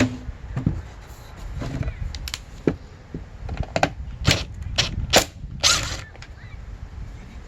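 Handling noise from taking apart a string trimmer's head: irregular clicks, knocks and a short scrape of tools and plastic parts, with a run of sharp clicks in the middle and the second half.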